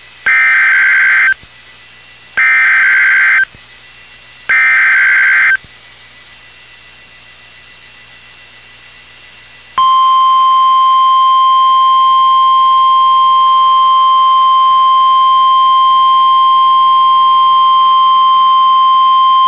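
NOAA Weather Radio Emergency Alert System signal. First come three one-second bursts of SAME digital header data. After a quiet gap of about four seconds, the steady single-pitched 1050 Hz Warning Alarm Tone starts and holds, the signal that a tornado warning is about to be read.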